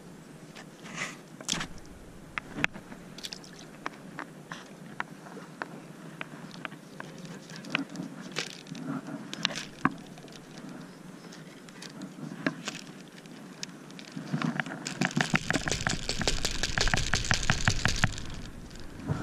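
Scattered clicks and knocks of a spinning rod and reel being handled. From about three-quarters of the way in comes a few seconds of dense, rapid clicking as the spinning reel is wound.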